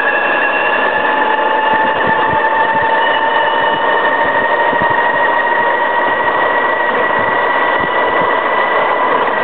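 Pocket bike's 36-volt electric motor, overdriven on 72 volts, whining steadily under way, its pitch rising slowly as the bike picks up speed. The whine runs over a steady rushing noise.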